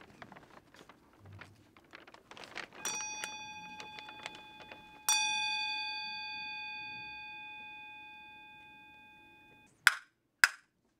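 A bell-like ringing tone struck twice, the second strike ringing out and slowly fading for about four and a half seconds before it stops abruptly. Faint light clicks and rustles come before it, and two sharp clicks near the end.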